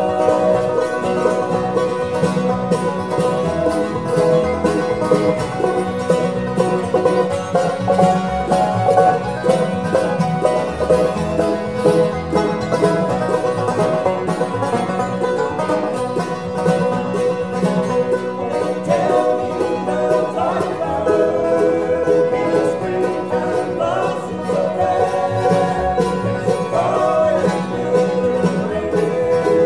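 Acoustic bluegrass jam band playing a song together: five-string banjo rolls over strummed acoustic guitars, with mandolin and fiddle in the mix and a steady beat.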